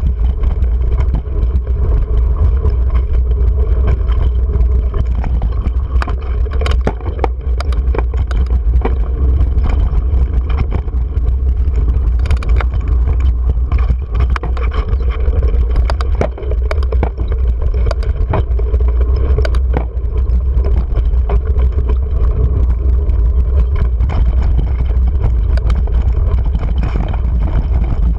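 Mountain bike ridden over a rocky dirt singletrack, heard from a GoPro on the bike: a steady low rumble of wind on the microphone, with tyre noise on the dirt and many sharp rattles and knocks as the bike hits rocks.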